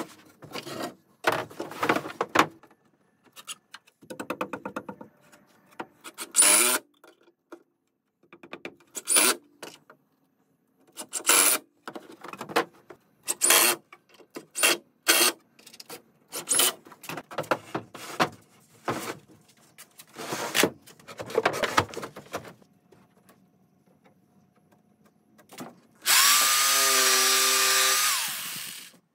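Power drill driving screws into a plywood frame in many short bursts, a few rising in pitch as the motor speeds up, with knocks of wood being handled between them. Near the end, a jigsaw runs steadily for about three seconds cutting a plywood sheet.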